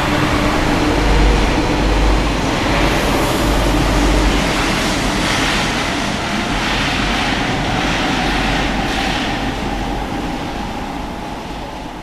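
RATP MF77 metro train pulling away on steel wheels, a loud rumble with a slowly rising motor whine that fades as the train runs off into the tunnel.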